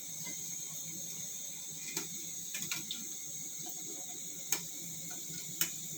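Hot cooking oil sizzling steadily as yam fries fry, with a few sharp clicks and taps: a small cluster a couple of seconds in, then two louder single clicks near the end.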